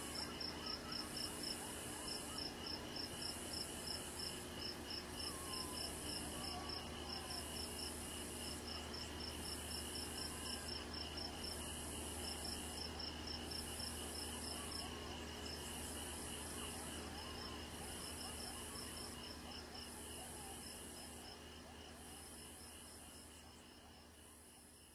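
Evening chorus of night insects: crickets trilling with fast, even ticking, over a higher buzzing call repeated about every second and a half. The chorus fades out near the end.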